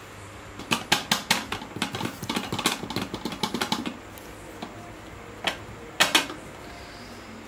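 Kitchenware clattering: a rapid run of sharp taps and knocks for about three seconds, then three separate knocks near the end, as the baked cake is worked out of its tin.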